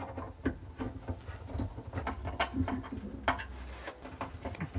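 Screws being hand-driven into a kitchen carousel's metal top mounting disc: a run of irregular small clicks and scraping from the screwdriver, screws and disc.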